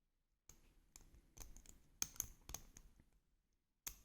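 Lock pick and tension wrench working the pins of a 40 mm Blossom padlock during single-pin picking: a quick run of faint, light clicks, then one sharper click near the end.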